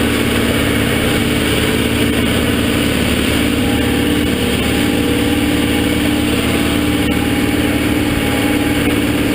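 Boat engine running steadily under way, a constant drone without a break.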